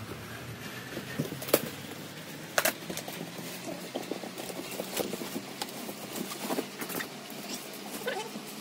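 Unpacking noise: plastic wrap crinkling and a cardboard box rustling as plastic wardrobe parts are pulled out and stacked, with scattered clicks and knocks. Two sharp snaps stand out, about one and a half and two and a half seconds in.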